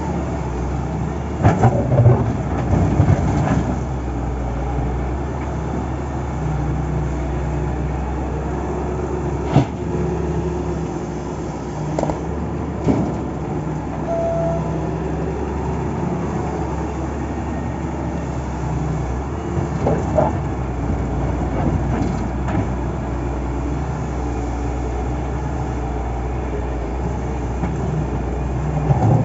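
Heavy diesel construction machinery running steadily, with a low engine drone and a few sharp metallic clanks and knocks from the working equipment.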